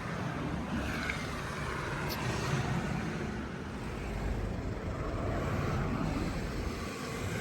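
Steady outdoor street ambience with a low traffic hum.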